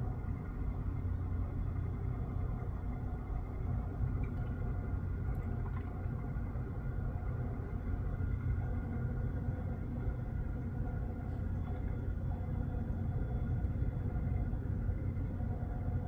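Steady low rumble of outdoor background noise, even in level throughout.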